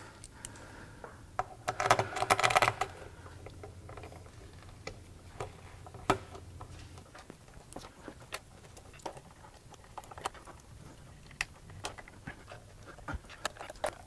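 Small metallic clicks and taps of bolts being handled and threaded by hand into a deep oil sump, with a short rattling burst about two seconds in. A faint low hum stops about halfway through.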